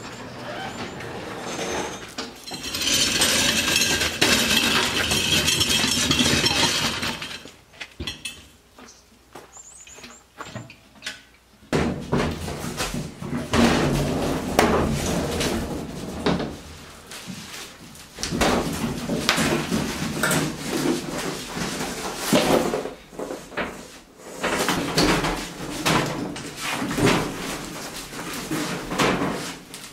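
Moving a large sheet-metal appliance on a two-wheeled hand truck: wheels rolling, the metal cabinet knocking and rattling, and cardboard shuffled on a tiled floor. A steady rushing noise runs from about two to seven seconds in, and irregular knocks and bumps fill most of the rest.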